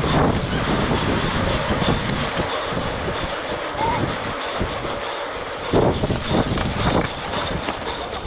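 Wind buffeting the microphone over the rolling tyre noise of a mountain bike riding at speed in a pack of racing cyclists. About six seconds in come a few louder rattles and knocks as the bike runs onto rough dirt trail.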